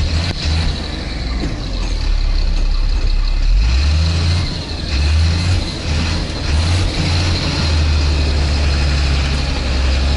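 Fire engine running on the move, heard from inside its crew cab: a steady low engine drone whose pitch steps up about four seconds in as the truck accelerates.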